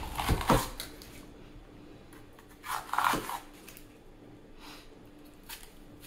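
Chef's knife cutting through a crisp red bell pepper on a wooden cutting board: a couple of knocks of the blade on the board just after the start, crisp slicing sounds about three seconds in, then a few faint cuts.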